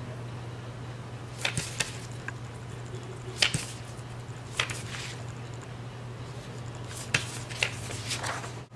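Quick, sharp scratches of a drawing tool stroked across paper, a handful of separate strokes, then paper rustling and crackling near the end as a sheet is peeled back. A steady low hum runs underneath.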